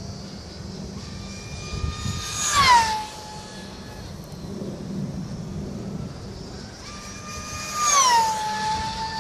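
Speed Shark RC speed plane's electric motor and propeller whining through two fast low passes, about three seconds in and again near the end; each time the whine is loudest as the plane goes by and its pitch drops sharply as it passes.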